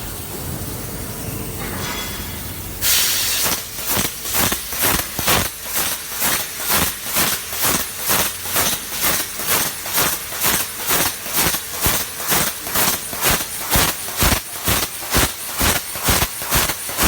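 Fiber laser cutting machine working on 25 mm carbon steel: a steady gas hiss, then about three seconds in a sudden louder start. After that comes a rhythmic pulsing hiss, about two pulses a second.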